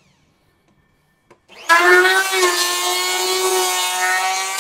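Total TL7508226 750 W electric hand planer switched on with a click about a second in, then running at full speed with a steady high whine while shaving the edge of a board at a half-millimetre cut. The sound drops sharply near the end as the cut stops and the motor begins to wind down.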